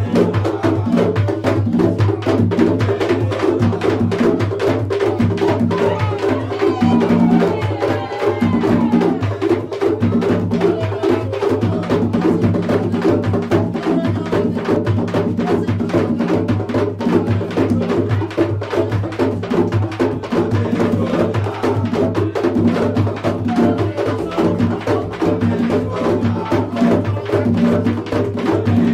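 Tambor de crioula drumming: a set of hand drums played in a fast, steady interlocking rhythm, with matracas (wooden sticks) clacking against the drum body and sharp strokes that never break.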